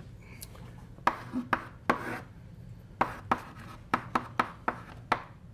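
Chalk writing on a blackboard: a run of sharp, irregular taps and short scrapes as symbols are written.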